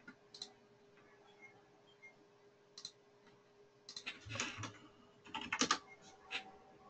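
Typing on a computer keyboard: a few isolated clicks, then two quick runs of keystrokes about four and five and a half seconds in, as a record number is entered into a form field. A faint steady hum runs underneath.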